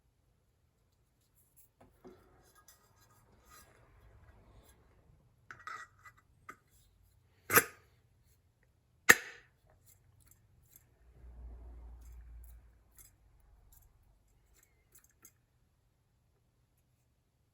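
Tools and small parts being handled on a work surface: scattered clicks and light rattles, with two sharp knocks about a second and a half apart near the middle, then a brief low rumble.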